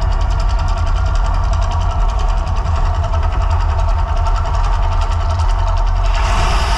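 Mirage volcano show eruption: a deep, steady rumble with a fast rhythmic pulse from the show's loudspeakers. A rushing hiss joins about six seconds in.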